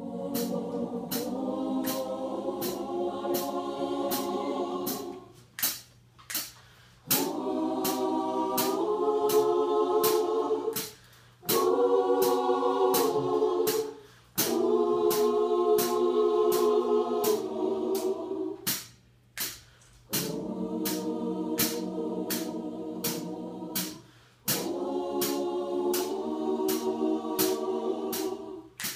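Gospel choir singing together in phrases of a few seconds each, with short pauses between them. A sharp percussive beat of about two a second keeps time through the singing and the pauses.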